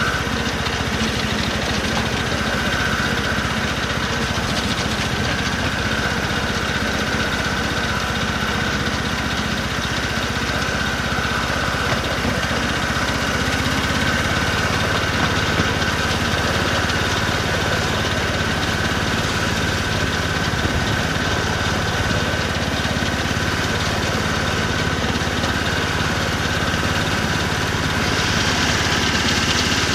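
Engine of a 7¼-inch gauge BR Class 03 outline ride-on locomotive running steadily as it travels along the track, with a steady high tone over the engine note. The hiss grows slightly near the end.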